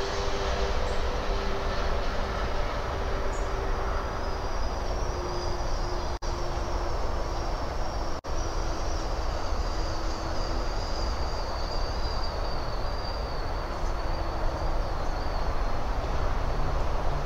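Steady background noise with a distant engine drone whose pitch slowly falls, joined by a faint high whine. The sound cuts out sharply twice, about six and eight seconds in.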